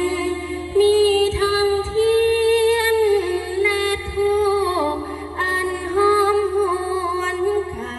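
A woman singing an Isan soul-calling chant (ern khwan) in long, held, melismatic notes that slide between pitches, with a few short breaks for breath.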